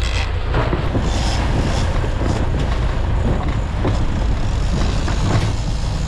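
Bertram sportfishing boat under way: a steady low engine drone under the rush and spray of water along the hull, with wind buffeting the microphone.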